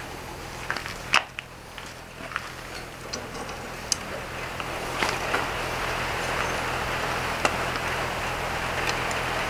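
A forge's steady rushing, louder from about halfway, with scattered metallic clinks of tongs and a hot steel bar handled on the anvil.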